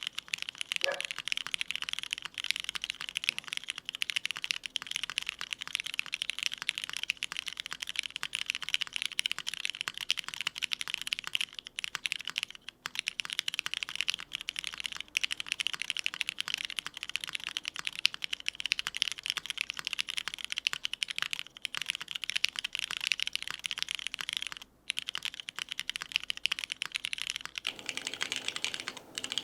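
Steady fast typing on a custom mechanical keyboard fitted with filmed Cherry New Nixie switches on a full aluminium plate, O-ring mounted, with GMK keycaps: a dense stream of key clacks with a couple of short pauses.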